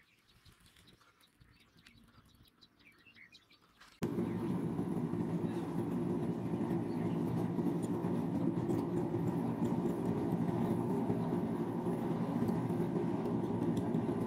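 Faint bird chirping, then a steady low mechanical drone cuts in suddenly about four seconds in and runs on unchanged.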